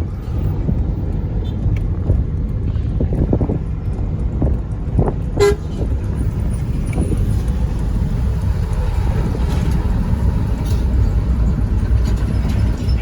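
Road traffic with a steady low rumble, and a short car horn toot about halfway through.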